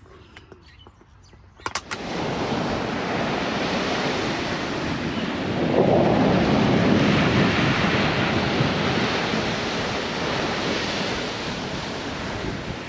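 Surf breaking on a sandy beach, mixed with wind buffeting the microphone: a steady rushing noise that starts suddenly about two seconds in and swells about six seconds in.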